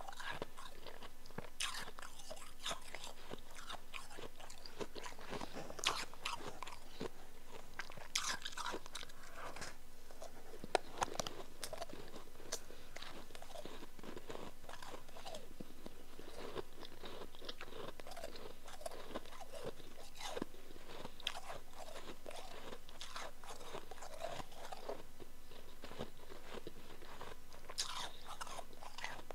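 A person chewing and biting powdery chunk ice: a steady run of irregular crisp crunches, with a few louder bites in the middle stretch.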